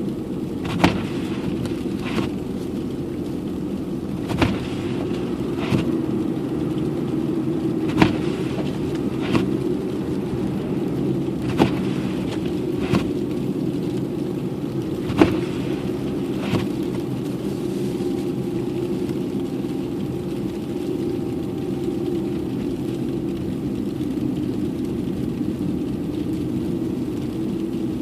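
Steady low engine and road rumble of a car driving, heard from inside the cabin. About ten sharp knocks come through in the first sixteen seconds, mostly in pairs, then stop.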